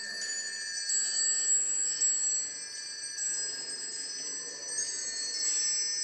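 The small bells of the Peacock Clock automaton chiming: many high tinkling tones struck one after another and ringing over each other as the clockwork performs.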